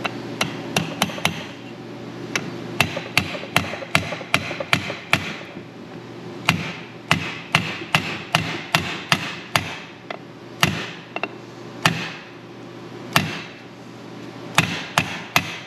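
A hammer tapping on a World Class T5 manual transmission at its shifter opening, in runs of quick strikes, about three or four a second, with short pauses between the runs.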